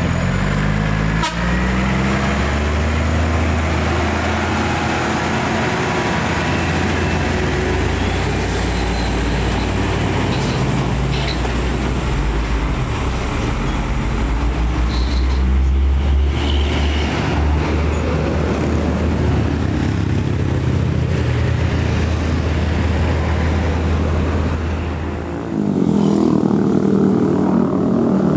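Heavy Scania truck's diesel engine pulling a loaded low-loader past, a deep steady engine drone that rises in pitch briefly near the start. About three seconds before the end it gives way to a higher-pitched engine of a different vehicle.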